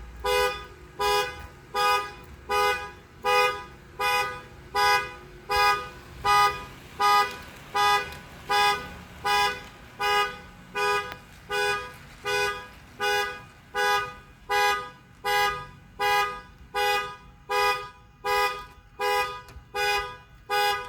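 Car alarm sounding the car's horn in a steady series of short honks, about one every three-quarters of a second.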